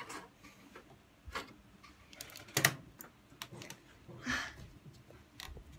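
A few scattered light clicks and taps at irregular intervals, with brief soft rustles between them.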